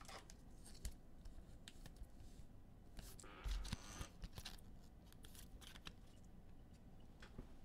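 Faint tabletop handling sounds: a few soft clicks and a brief rustle about three seconds in.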